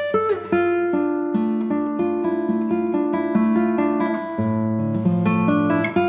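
Guitar music: plucked notes picked one after another, several a second, over lower held bass notes.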